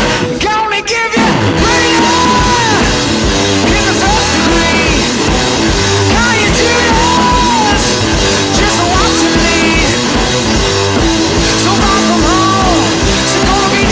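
Background rock song with a sung vocal line over a steady beat; the music thins out briefly about a second in.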